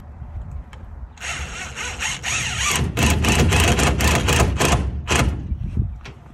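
Cordless drill driving screws into a window frame. The motor starts about a second in and runs in several spurts with a rising whine, then stops shortly before the end.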